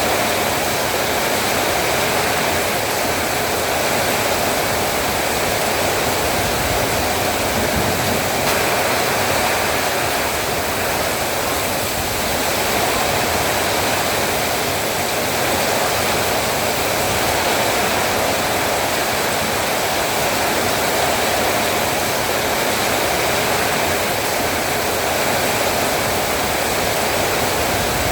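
Heavy rain falling steadily, a dense even hiss without breaks or distinct drops.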